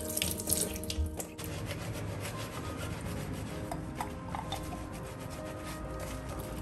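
Water runs from the tap for about the first second, then stops. After that a soapy kitchen sponge scrubs a small utensil over a stainless steel sink, a steady rubbing.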